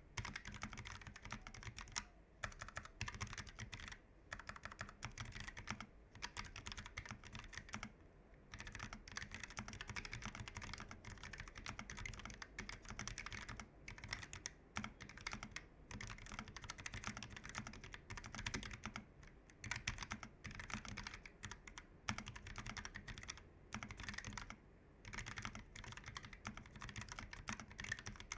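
Keychron K1 v4 tenkeyless mechanical keyboard with Gateron low-profile red linear switches being typed on quickly: a dense run of light keystroke clicks, broken by brief pauses every second or two.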